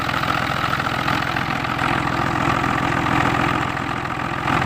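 Yanmar 3TN three-cylinder diesel engine idling steadily. It runs with its faulty fuel-shutoff solenoid left disconnected, after cranking without starting before.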